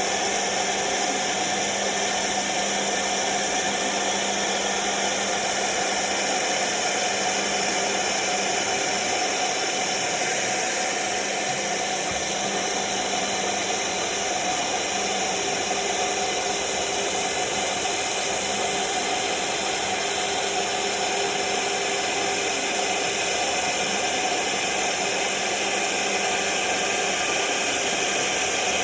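CNC router spindle running steadily with a solid carbide bit, cutting 4 mm aluminium composite panel: a continuous high hiss with a faint steady whine.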